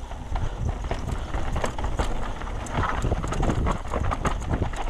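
Downhill mountain bike (Trek Session) riding over a root-covered trail: a rapid, irregular clatter of knocks and rattles from the tyres and frame hitting roots, over a steady low rumble.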